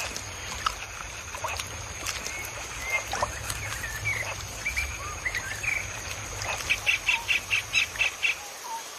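Wild forest ambience: scattered bird chirps and whistles over a steady high insect whine and a low rumble. Near the end a quick run of repeated calls, about five a second, stands out.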